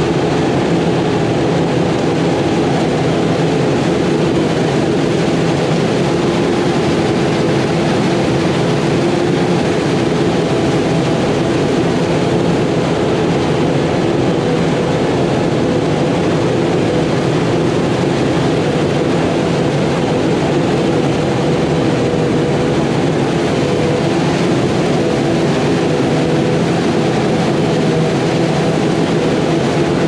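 Claas Jaguar self-propelled forage harvester and JCB Fastrac tractor running steadily under load while chopping corn silage: a continuous heavy engine and machinery drone with a steady hum.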